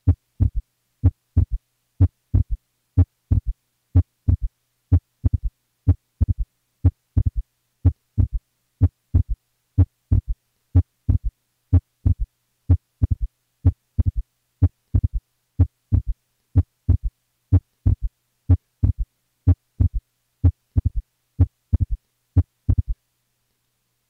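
Heart sounds at the lower left sternal border beating steadily at about 75 a minute: a widely split second sound, split even more on inspiration, followed by a low-pitched third sound. A right-sided S3 like this is suggestive of right-sided heart failure, here from a massive pulmonary embolism.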